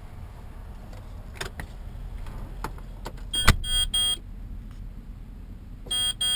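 Electronic warning chime in a semi-truck's cab beeping in two sets of three quick beeps, the first set just after a sharp click about three and a half seconds in. The truck's diesel engine idles underneath as a low steady rumble, with a few light clicks and rattles.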